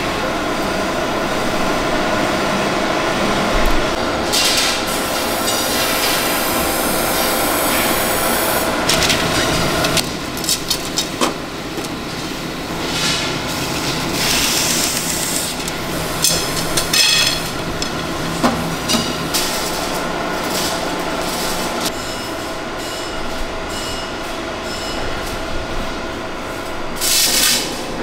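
Factory machinery running with a steady hum that shifts about ten seconds in, over intermittent clattering, clinking and scraping as thin carbon rod blanks are handled.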